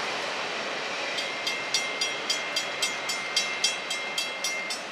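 Railroad grade-crossing bell ringing in quick even strikes, close to four a second, which come through clearly from about a second in as the rolling noise of a freight train's last cars fades. The bell keeps ringing while the crossing gates lift after the train has cleared.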